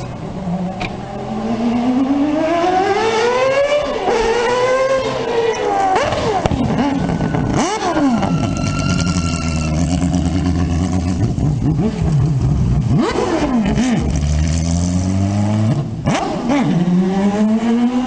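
Mazda 787B's four-rotor R26B rotary engine under throttle: the revs climb steeply in the first few seconds, drop sharply several times as it slows, run low and steady in the middle, and climb again near the end as the car accelerates away.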